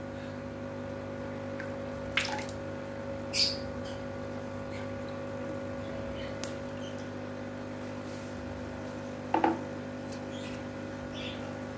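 Aquarium air line bubbling steadily into a water-filled plastic tub, over a steady low hum, with a few short clicks about two, three and a half, and nine and a half seconds in.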